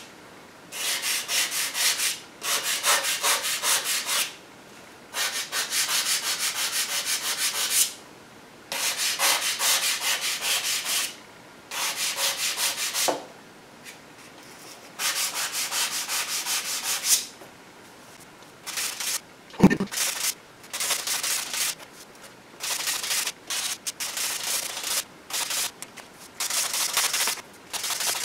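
Hand sanding of hardened two-part polyester glazing putty on a painted bumper cover, with sandpaper wrapped on a semi-rigid sanding block: quick back-and-forth rasping strokes in runs of a few seconds, separated by short pauses, to level the putty over paint runs. A single sharp knock about two-thirds of the way through.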